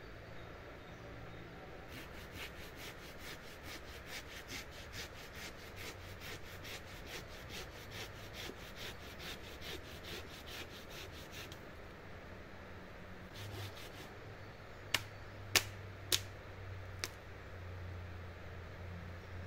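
Rapid rhythmic scraping strokes by hand, about five a second, for roughly ten seconds, then four sharp cracks a little over halfway through, over a low steady rumble.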